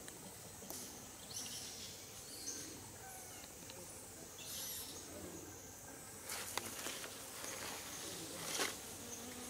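Faint forest ambience: a steady high-pitched insect drone, with short rustling hisses and a few sharp clicks in the second half.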